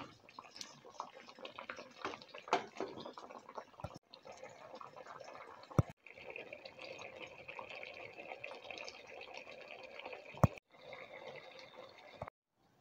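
Curry sauce of fish and potatoes bubbling and sputtering in a frying pan, with a steadier simmering hiss in the second half. A few sharp knocks stand out, the loudest about six and ten seconds in, and the sound breaks off abruptly several times.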